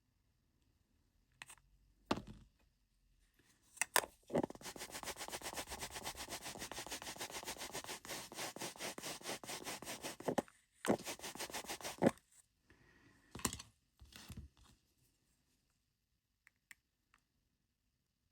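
Rapid back-and-forth rubbing or scrubbing on a small part, about eight strokes a second, for about six seconds and then again briefly; a few sharp taps and clicks before and after.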